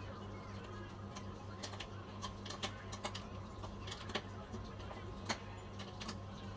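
Irregular light clicks and taps from handling gaming-chair parts, over a steady low hum.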